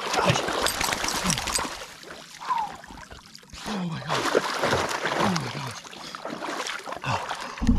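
Shallow lake water splashing and sloshing around legs as a person wades out of cold water. Several short gasping groans that fall in pitch come from the wader in the cold.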